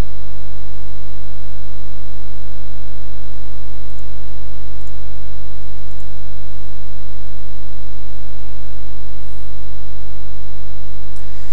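Loud, steady electrical mains hum with hiss in the recording line, a stack of even tones from the lowest pitch upward plus a thin high whine, with a few faint clicks partway through.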